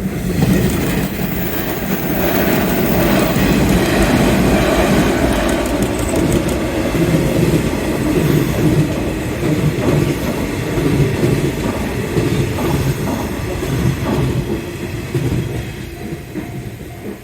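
Nishitetsu 5000 series electric train passing at close range, wheels clacking over the rail joints; the noise builds about half a second in, holds, and fades over the last second or so.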